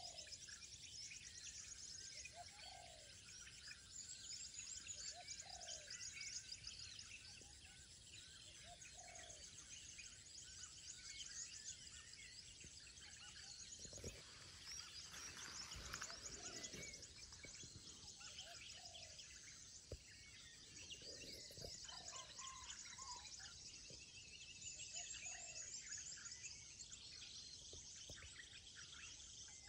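Faint birdsong at a lakeside: many small birds chirping and trilling, with a short, lower call repeating every couple of seconds.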